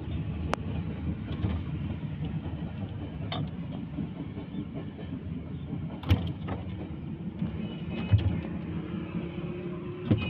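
A steady low rumble with about five short, sharp knocks spread through it.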